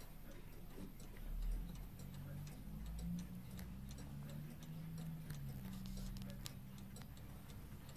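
Pendulum mantel clock ticking steadily, with a dull handling bump about a second and a half in.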